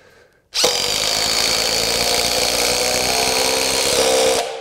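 DEWALT Atomic compact impact driver hammering a long screw into a wooden board under load. It starts about half a second in, runs steadily for nearly four seconds and stops abruptly just before the end.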